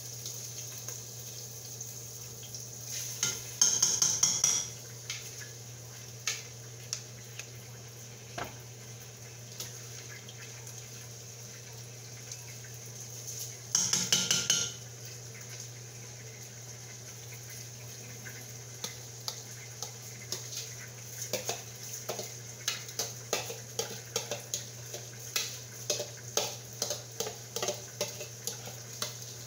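A red spatula stirring and scraping in a red cooking pot of rice on the stove. Two short loud bursts of noise come about 4 and 14 seconds in, and near the end a quick run of knocks against the pot, several a second. A steady low hum runs underneath.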